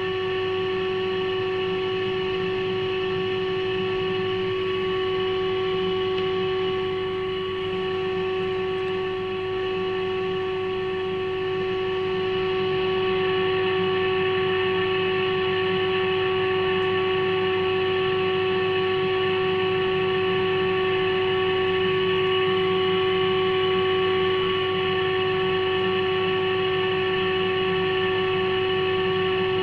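Steady test tone from a Fleetwood 1061 valve radio's speaker, the signal generator's modulation tone demodulated during IF alignment at 455 kHz, over a low mains hum. The tone dips slightly twice, then grows a little louder about twelve seconds in as the IF transformer is tuned toward its peak.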